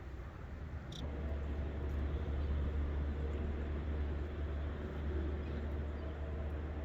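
Strong wind buffeting the microphone: a steady low rumble that rises about a second in, with a brief click at the same moment.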